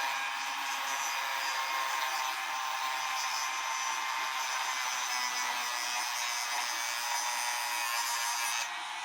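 Dremel rotary tool running steadily at high speed as it cuts a notch into a thin metal tool tip, giving a high whine with grinding noise. It stops suddenly near the end.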